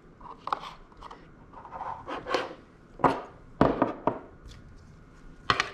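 Handling noises on a tabletop: a sight box and two Holosun reflex sights being set down and slid about, giving several short knocks and rubs.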